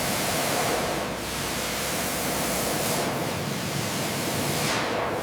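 A loud, steady rushing hiss spread evenly from low to very high pitches, easing off near the end.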